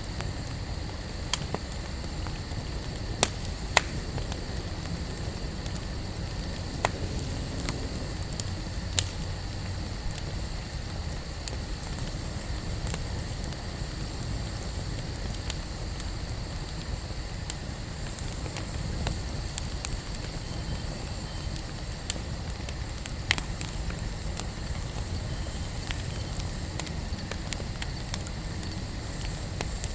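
Wood fire burning, with a steady low rush from the flames and sharp crackling pops every few seconds.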